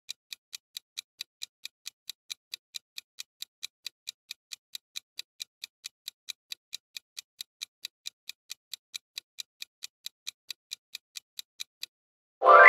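Quiz countdown timer sound effect: clock-like ticking, about four to five ticks a second. The ticking stops near the end and a loud ringing chime sounds for the answer reveal.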